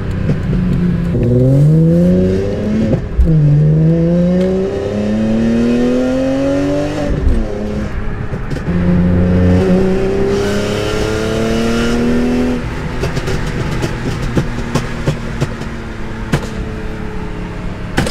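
BMW E46 M3's S54 straight-six with a 6-to-1 header accelerating hard: revs climb twice, each time dropping sharply at a shift, then hold a steadier pull. About twelve seconds in the throttle closes and the exhaust crackles and pops on the overrun, typical of its pop-and-flame tune.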